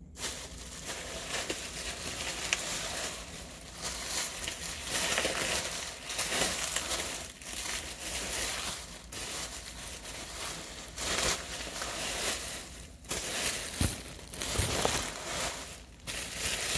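Bubble wrap being handled and pulled off a package, crinkling and rustling in irregular bursts.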